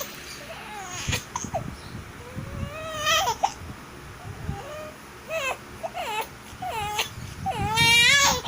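High-pitched whimpering cries come in short bursts, likely broken by hiccups. A longer rising cry comes about three seconds in, and the loudest, longest cry comes near the end.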